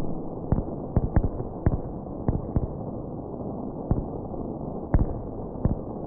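Fireworks going off: about nine sharp bangs and cracks at uneven intervals, over a steady background hiss.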